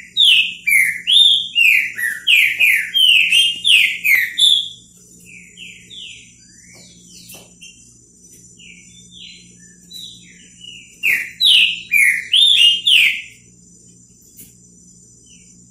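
Green-winged saltator (trinca-ferro) singing: a loud run of quick falling notes for the first four or five seconds, softer scattered notes after, then a second loud run about eleven seconds in.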